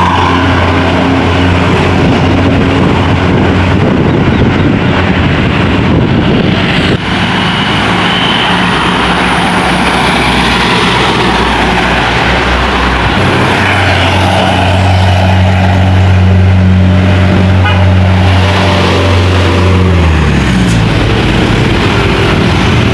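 Heavy road vehicles, tour buses and trucks, passing close by with their engines running loud and a steady low drone. Near the end the engine note slides down in pitch as one goes by.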